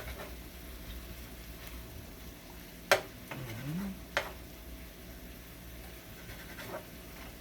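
Seasoned chicken pieces frying in a pan with a low, steady sizzle, much of the water already cooked off. Two sharp knocks, the first about three seconds in and the loudest, the second just over a second later.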